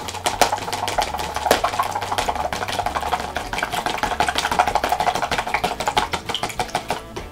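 Fork beating a raw egg in a plastic container: a fast, steady run of light clicks and taps, several a second.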